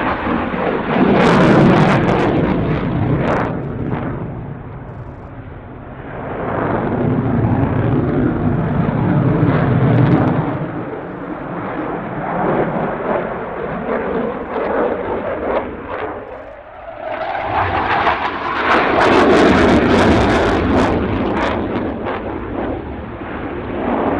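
Dassault Rafale's twin Snecma M88 jet engines in flight, a loud jet noise that swells and fades three times as the aircraft climbs and turns. There is a ragged crackle in the loudest stretches.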